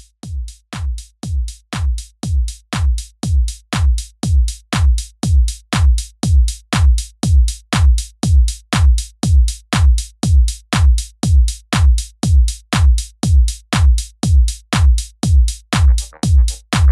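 Background electronic music: a steady kick drum beating about twice a second, with more instrument parts joining near the end.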